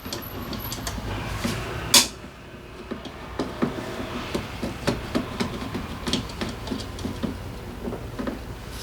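Hand tools and metal parts clicking and clinking during disassembly of a Suzuki Address 125 scooter's drivetrain, with one loud sharp metallic knock about two seconds in.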